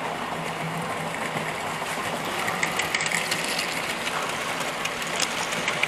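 Model railway train running on the track: the steady whir of its small electric motor and wheels, with a few clicks near the end.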